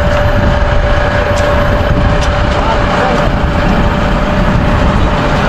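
Volvo semi-truck's diesel engine idling close by: a steady low rumble with a constant thin whine above it.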